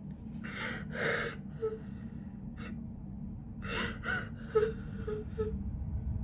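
A young woman crying: sharp, breathy sobbing gasps and sniffles about half a second and a second in, then again near four seconds.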